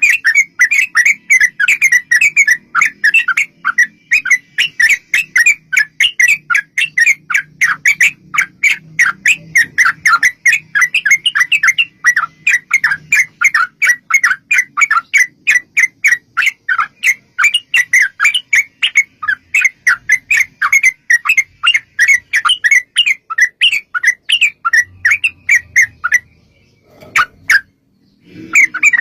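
Yellow-vented bulbul (trucuk) song: a long, fast run of chattering notes, several a second, with a short break near the end before the song picks up again.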